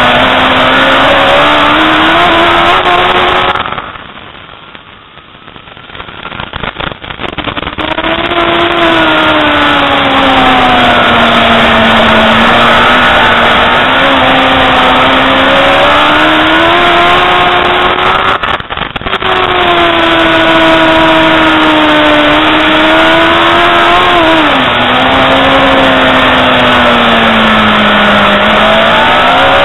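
Racing superbike engine heard onboard at race speed, its pitch climbing and falling with the throttle through corners, with a sudden drop in pitch near the end. The sound falls away sharply for about four seconds shortly after the start, and dips again briefly midway.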